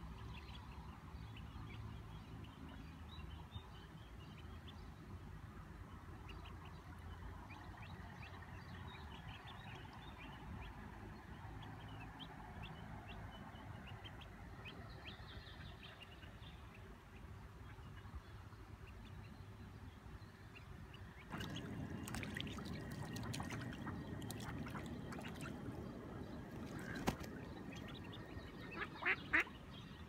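Mallard ducklings peeping over a steady background hiss, with a few louder duck calls near the end. The background noise steps up suddenly about two-thirds of the way through.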